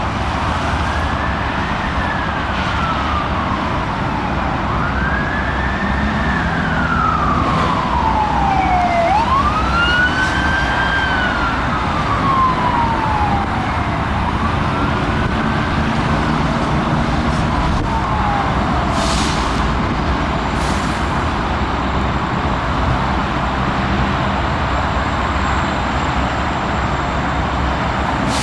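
A siren wailing in long sweeps, each rising quickly and falling slowly, about every four seconds, fading out after about twenty seconds. Underneath, the steady low rumble of approaching diesel freight locomotives.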